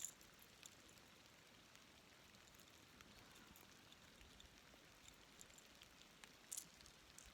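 Near silence: faint light rain, a steady soft hiss with a few scattered drop ticks, two of them a little louder about six and a half seconds in.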